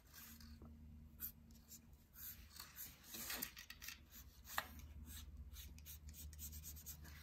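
Faint scratching of a pencil drawing a curve on folded white paper, in short uneven strokes with a few sharper ticks, over a steady low hum.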